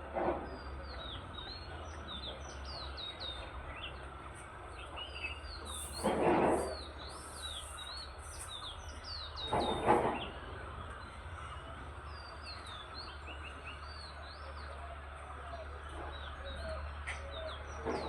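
Many small birds chirping, a dense chatter of short, quick, falling high chirps. Two louder, lower calls stand out about six and ten seconds in, over a steady low background hum.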